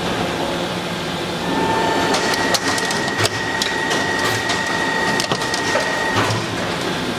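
Kitamura Bridgecenter-6G machining center drilling S50C carbon steel with a 75 mm two-insert throw-away drill at 849 rpm: a steady machine noise. About a second and a half in, the cut grows louder, with a steady high ringing tone and scattered sharp clicks and crackles. These stop about six seconds in.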